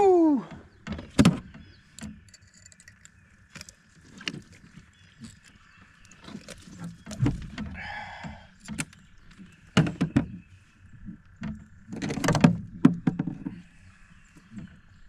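Irregular knocks, taps and clatter of fishing line, hooks and tackle being handled in a john boat, with a louder cluster of knocks about ten and twelve seconds in.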